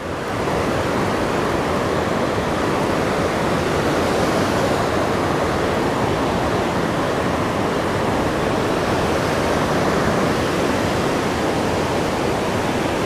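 Water pouring over a low dam spillway: a steady, even rush of noise.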